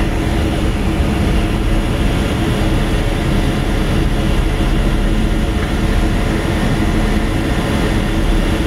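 Tugboat's diesel engines running steadily under way: a loud, even rumble with a faint steady hum, mixed with wind and water noise.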